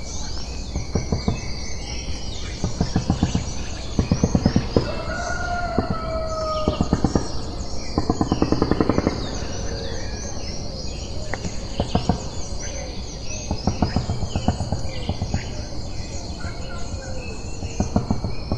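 Mixed birdsong of many short chirps over a steady high insect drone, with several runs of rapid rattling calls and two long descending whistles about five seconds in.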